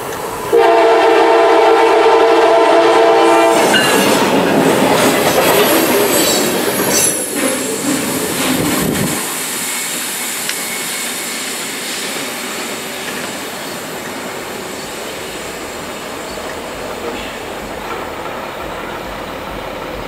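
Freight train's locomotive air horn sounding a chord for about three seconds, then the train running past close at speed with wheels clicking over the rails. After about nine seconds its noise fades to a steady, dying rumble as it moves away.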